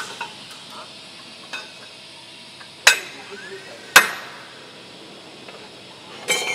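Steel slitter blades and shims clinking and knocking against each other as they are handled on the knife shaft. There are small clicks, two loud sharp metal strikes about a second apart in the middle, and a ringing metallic clink near the end.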